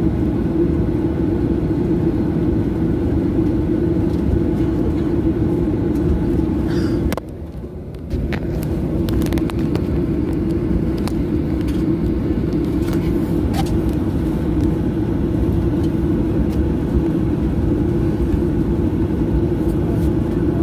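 Steady cabin noise of a jet airliner taxiing: a constant engine hum over a low rumble. About a third of the way in the sound drops and goes muffled for about a second, then returns.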